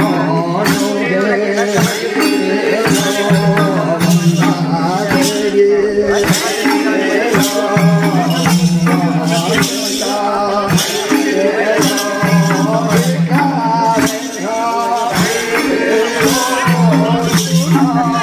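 Bhailo folk song: singing over a held low note, with a steady percussion beat and jingling, shaker-like percussion.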